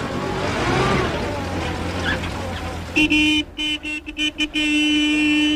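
A vintage open touring car's engine runs as the car approaches. About three seconds in its horn honks: a burst of short toots, then a long held blast on one steady tone.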